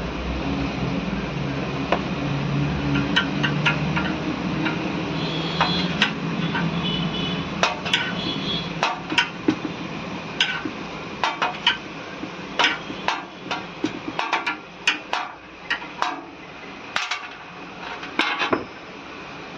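Repeated sharp metallic taps and clinks, each ringing briefly, coming quicker and more irregular from about halfway through; the sound of metal stove parts being tapped and handled during a gas stove repair.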